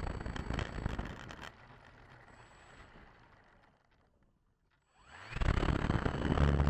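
A rushing noise fades away to near silence, then about five seconds in the RC model airplane's motor and propeller start up and run with a steady drone.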